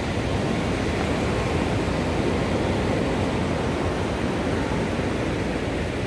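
Steady rushing noise of surf and wind at the shore, with wind buffeting the microphone; no distinct breaks or hits.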